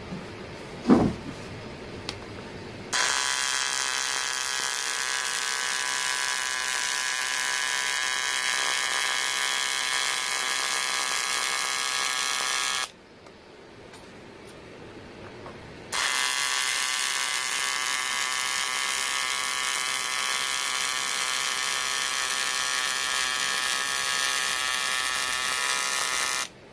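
Welding arc on aluminium buzzing and hissing steadily in two runs: struck about three seconds in, broken off around thirteen seconds, struck again about three seconds later and held until just before the end. A short thump comes about a second in.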